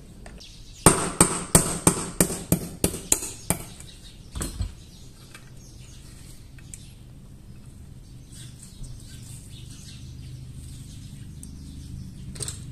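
Small hammer tapping about nine times in quick succession, about three taps a second and growing fainter, driving the hammer pin out of a Beretta 950 .22 pocket pistol's frame. A duller single knock follows about a second later.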